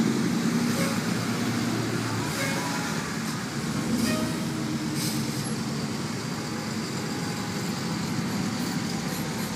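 A line of tow trucks driving slowly past, a steady engine rumble and road noise.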